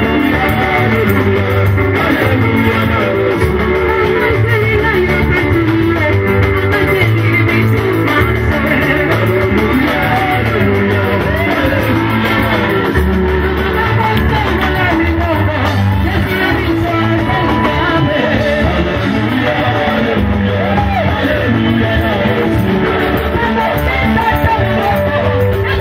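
Church praise group performing: voices singing over a band with a steady, prominent bass line.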